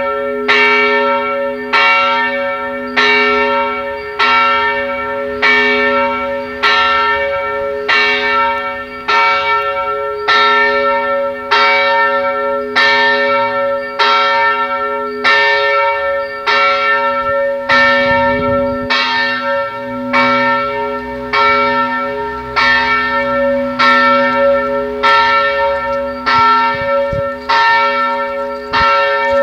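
Church bell of the Parczew basilica ringing, swung in an even rhythm of about one stroke a second, each stroke ringing on into the next.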